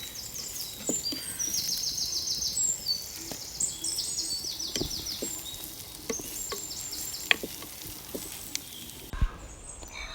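Onions and ginger-garlic paste sizzling in hot coconut oil in a pan, with a few short knocks of a spoon stirring against the pan. Birds chirp in the background. The sizzle cuts off suddenly about nine seconds in.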